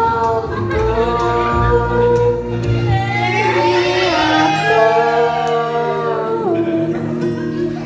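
A young girl singing into a microphone, holding long notes, over a steady musical accompaniment.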